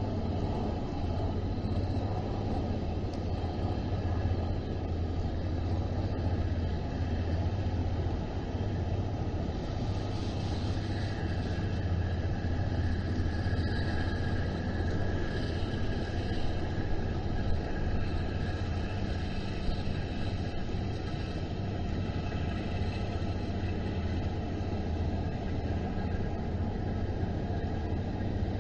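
A steady low rumble, with a faint higher hum coming in over the middle stretch.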